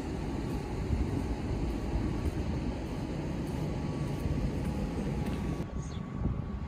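Outdoor background noise: a low, unsteady rumble. Near the end it changes abruptly, the hiss thins, and a few faint high chirps come in.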